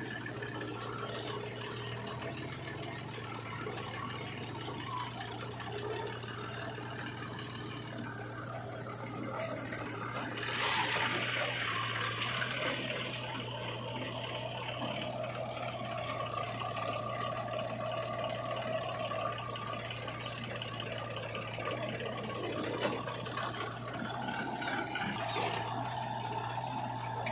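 Heavy diesel engine of earth-moving machinery running steadily with a low hum, with a louder rushing burst about ten seconds in.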